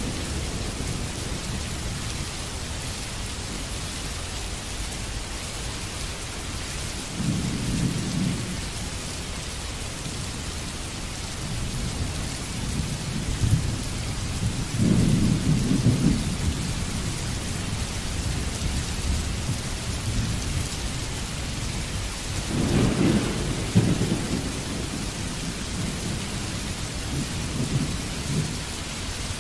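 Steady hiss of rain with low rumbles of thunder rolling in four times, the strongest about halfway through and again about three quarters of the way through.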